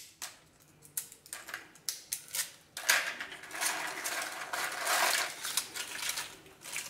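Crisp deep-fried rice-and-gram-flour ribbon pakkavada strips crackling and snapping as hands break them into pieces and stir them on a plate. Scattered clicks at first, then denser crackling from about three seconds in.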